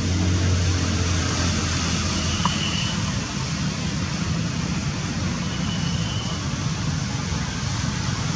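Steady outdoor background rumble and hiss, like a motor vehicle running nearby, with a low hum that fades about two and a half seconds in. Two short high tones are heard, about two seconds and six seconds in.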